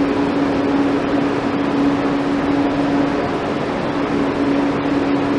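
Steady machinery hum: an even rushing noise with a constant low-pitched drone under it, unchanging throughout.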